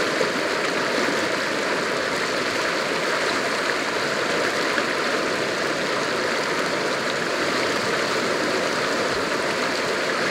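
Steady rush of whitewater from a standing river wave breaking right at the microphone, an even churning noise with no breaks.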